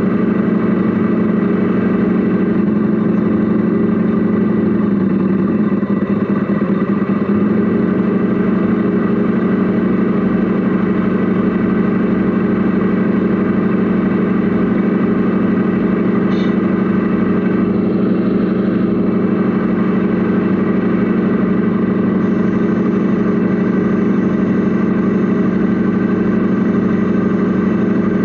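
Radio-controlled Mercedes Actros SLT model truck running, heard from inside its cab as a steady, unchanging hum of several even tones. There is a short click about sixteen seconds in.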